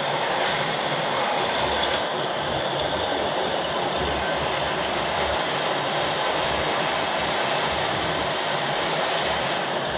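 Metal lathe turning a large shaft: the cutting tool running steadily along the workpiece with a dense scraping hiss. A thin high-pitched squeal from the cut comes in about two seconds in and stops just before the end.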